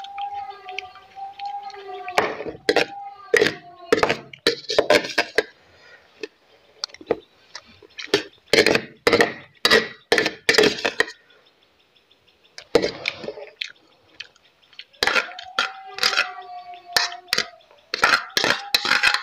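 Metal spoon clinking and scraping against a steel plate while scooping up fried rice, in quick clusters of sharp clinks with a short lull in the middle.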